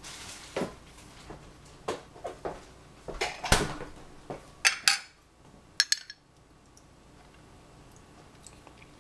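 A spoon and dishes clinking and knocking as kitchenware is handled: a string of separate clinks and knocks, loudest about three and a half and five seconds in, stopping after about six seconds.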